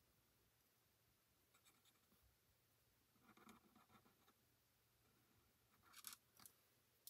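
Near silence, with faint scratching of a marker tip drawing on cardstock: a few soft strokes about three seconds in and a couple more near the end.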